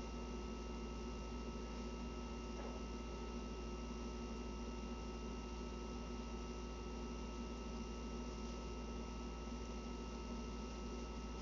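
Steady electrical hum with a faint hiss under it: room tone, with one faint tick about two and a half seconds in.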